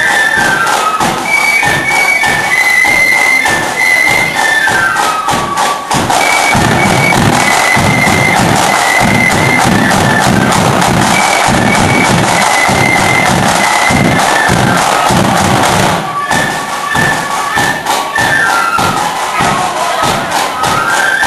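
Flute band playing a march: a shrill tune on many flutes over side drums and a thumping bass drum. For several seconds in the middle the flute tune drops back under louder drumming and crowd cheering, then comes through clearly again.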